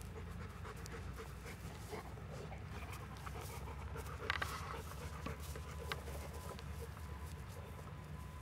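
Golden retriever panting, with small scattered clicks and rustles over a low steady rumble; one brief louder rustle about four seconds in.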